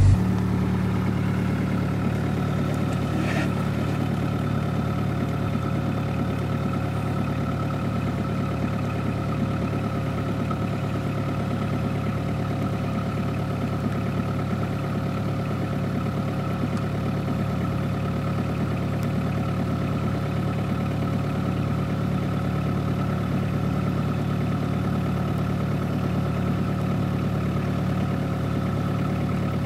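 Sherp all-terrain vehicle's diesel engine idling at a steady, even speed.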